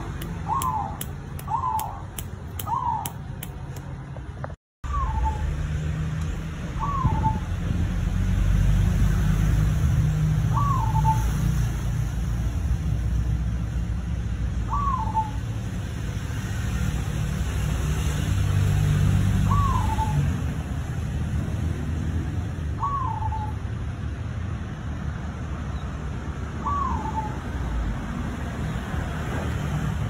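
Zebra dove (perkutut), black cemani form, cooing in short hooked notes, about one every second and a half at first, then one every three to four seconds. A steady low rumble runs underneath.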